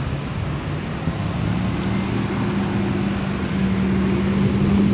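An engine running steadily, a low hum of several level tones over a rushing background, its main tone growing stronger about two seconds in.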